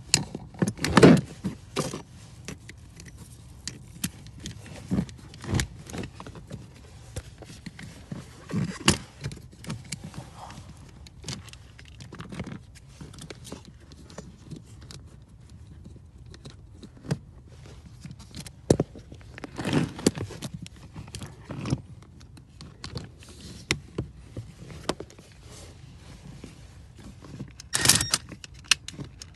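Irregular clicks, taps and small rattles of hand work on plastic trim and a screwdriver, as the cabin filter cover is fitted back and its T20 screw handled. Louder knocks come about a second in, around nine seconds, around twenty seconds and near the end.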